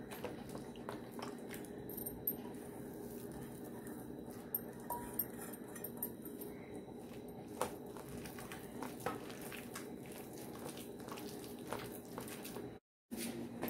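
Faint soft squelching of bare hands mashing and mixing cooked potato into roasted tomato and eggplant pulp in a steel bowl, with scattered light clicks against the steel, over a steady low hum.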